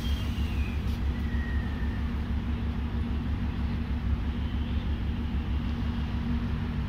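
Diesel engine of a DEMU (diesel multiple unit) train idling, with a steady low, rapid throb.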